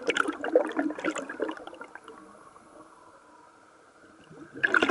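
A scuba diver's exhaled air bubbling out of the regulator underwater: a long burst of bubbling that fades out, a quieter pause, then another burst near the end.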